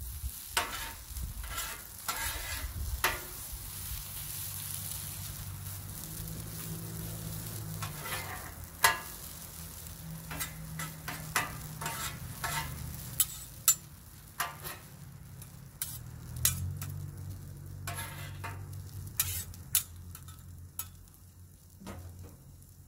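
Hash browns frying in oil on a Blackstone flat-top griddle, sizzling steadily. Two metal spatulas scrape and clack against the steel cooktop as the potatoes are turned and pressed, with the sharpest clacks about nine and fourteen seconds in.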